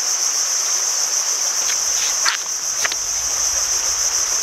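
Evening insect chorus: a steady, high-pitched shrill running without a break, with a few brief sharp sounds about two to three seconds in.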